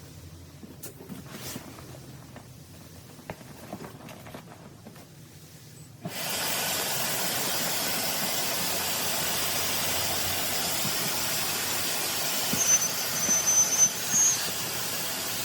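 An electric air pump switches on about six seconds in and blows a steady, loud rush of air into the Bestway SaluSpa inflatable hot tub to inflate it. A few brief high squeaks come through near the end.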